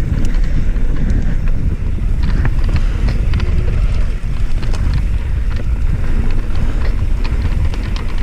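Wind rushing over an action camera's microphone during a downhill mountain bike descent, with tyres rolling over a dirt trail and scattered sharp clicks and rattles from the bike.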